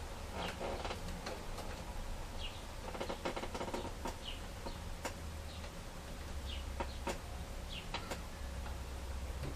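Small clicks and scrapes of a Phillips screwdriver and hands working the tiny mounting screws of a laptop LCD panel into its frame. Faint short high chirps recur every second or two.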